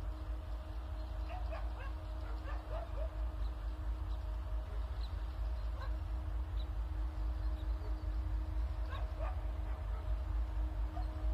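A dog barking and yipping in short bouts: a cluster about a second and a half in, single calls near six seconds, and another pair near nine seconds. Under it run a steady low rumble and a faint steady hum.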